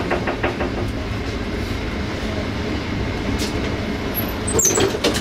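Passenger train running on the track, heard from on board: a steady low rumble from the wheels and running gear. A quick run of clicks comes at the start, and a louder cluster of knocks near the end as the wheels pass over rail joints.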